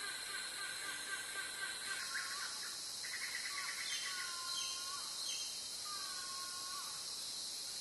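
Wild birds calling: a series of short whistled calls, a quick chattering trill about three seconds in, over a steady high hiss.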